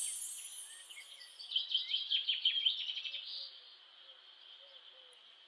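Nature ambience of birdsong: a quick flurry of small chirps for about two seconds, starting about a second and a half in, over a steady high insect-like hum. A high sparkling chime fades away at the very start.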